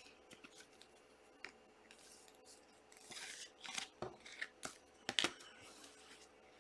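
Quiet, scattered rustles, scrapes and clicks of trading-card packs and cards being handled, with snips like scissors cutting open a pack wrapper.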